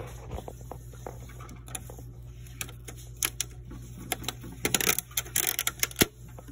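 Sharp clicks and taps of fingernails and fingers against the plastic frame and glass strip of an Epson L6270's opened automatic document feeder, with a dense cluster of taps and brief scrapes near the end.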